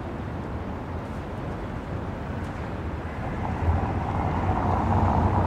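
City street noise with a traffic rumble that grows louder from about three and a half seconds in, as a vehicle draws near.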